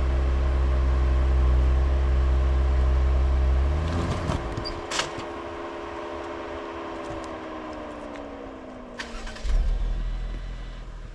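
Four-wheel drive's engine running at low revs as it crawls slowly over rocks. About four seconds in, the deep engine note drops away and a whine slowly falls in pitch for several seconds, with a sharp click. A deep engine sound picks up again near the end.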